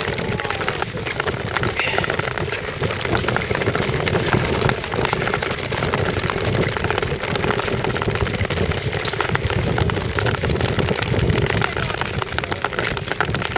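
Several Nordic touring skates scraping steadily over clear ice in a continuous rush of gliding strokes, with wind rumbling on the microphone.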